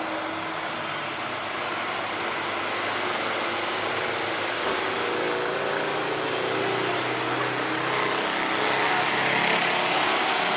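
Old Toyota 'buaya' dump truck's diesel engine running hard as the truck climbs a steep gravel slope with a full load of limestone. It grows louder as the truck comes closer.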